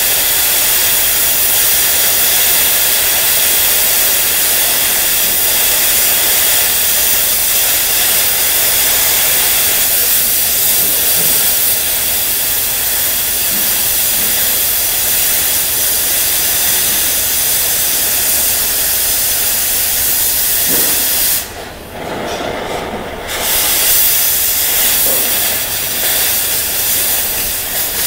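Oxy-acetylene cutting torch blowing its cutting-oxygen jet through steel plate: a loud, steady hiss. About 21 seconds in the hiss drops away for a couple of seconds, then comes back.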